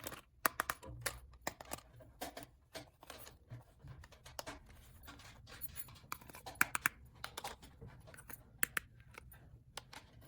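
Small plastic toy pieces being handled: irregular clicks, taps and scratching, several sharp clicks close together a little past halfway.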